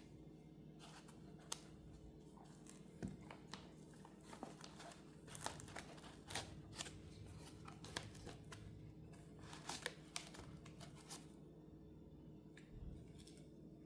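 Plastic packaging being handled and unwrapped: scattered short crinkles, crackles and small taps, some tearing, over a faint steady low hum.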